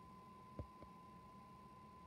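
Near silence: faint room tone with a steady thin high whine, and two soft low thumps just over half a second in.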